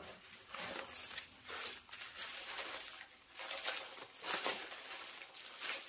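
Brown kraft-paper packing wrap rustling and crinkling as it is pulled out of a box and unwrapped by hand from a bottle, in irregular bursts.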